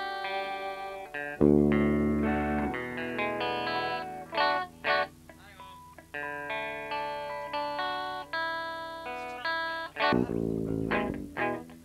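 Guitar being played: a run of single plucked notes, with a loud low chord about a second and a half in and another near the end.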